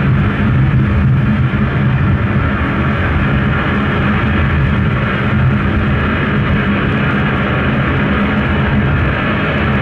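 Steady droning soundscape from a sound-and-video installation: a continuous low hum with a rushing noise over it, unchanging throughout.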